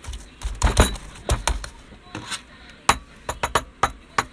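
A lump of slime being squished and pressed by hand on a desk, giving irregular sharp pops and clicks: a few heavier ones in the first second and a half, then a quick run of short clicks near the end.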